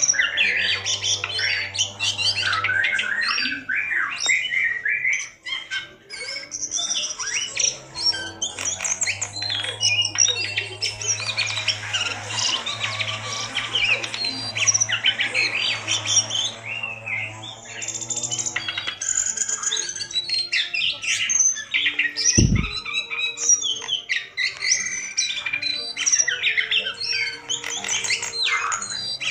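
A caged jongkangan (cingcoang, a shortwing) singing a long, rapid, varied run of chirps, squawks and trills, a strong, full song meant as a lure to set other jongkangan singing. Faint background music runs underneath, and there is a single low thump about three-quarters of the way through.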